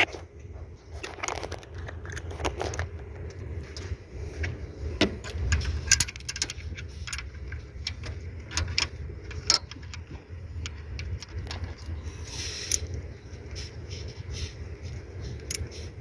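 Metal hand tools clicking, clinking and scraping on metal in irregular taps while the bolts holding an EGR valve are worked loose, over a steady low rumble.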